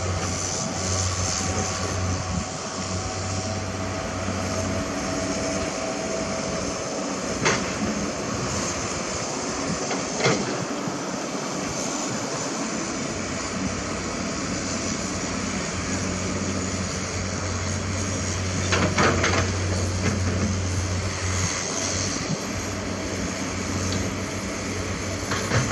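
Diesel engines of loaded light dump trucks running as they drive slowly, a steady low hum that fades for a stretch in the middle and comes back, with a few sharp knocks scattered through.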